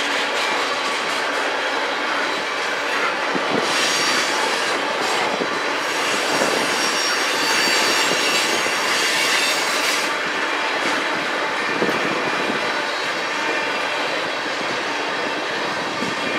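Freight train of railroad tank cars rolling past: steady rumble and rattle of steel wheels on the rails. A high-pitched wheel squeal grows louder from about four to ten seconds in.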